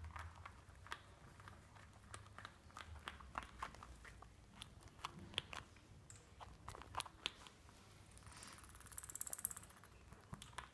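European ground squirrel gnawing and biting at a hollow plastic ball: faint, irregular clicks and scrapes of teeth on plastic, with a fast rattling run of them lasting about a second near the end.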